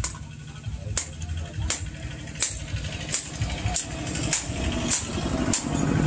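Hand hammer forging a red-hot steel axe head on a small post anvil: sharp ringing blows at a steady pace, about one every two-thirds of a second. A steady low engine-like drone runs underneath.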